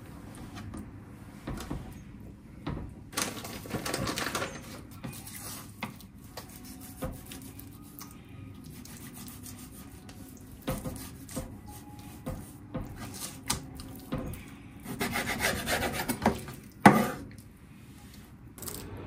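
Raw chicken breast being skinned and sliced thin with a kitchen knife on a plastic cutting board: irregular scraping and rubbing of blade and meat, with a sharp knock near the end.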